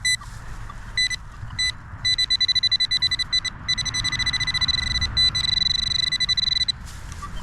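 Handheld metal-detecting pinpointer, a Nokta AccuPoint, beeping in a freshly dug hole: two short beeps, then from about two seconds in rapid pulsing that runs together into a near-continuous high tone, the sign of metal close to the probe tip.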